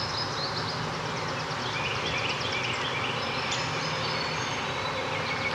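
Forest ambience: several small birds chirping and trilling, with quick repeated high notes and short falling chirps, over a steady background hiss.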